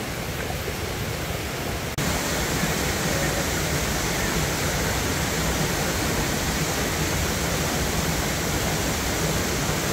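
Steady rush of a forest waterfall and stream pouring over rocks. The sound breaks off abruptly about two seconds in and comes back a little louder.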